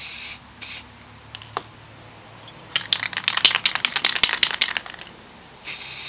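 Aerosol spray-paint can hissing in short bursts: one at the start, a brief puff just after, and another near the end. Between them, for about two seconds, comes a fast clattering rattle, the can being shaken with its mixing ball knocking inside.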